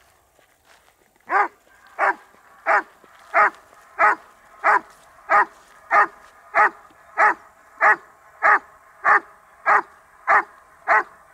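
Dobermann barking steadily at a protection-sport helper holding a bite sleeve, the hold-and-bark of IGP protection work. It gives about sixteen evenly spaced barks, roughly three every two seconds, starting a little over a second in.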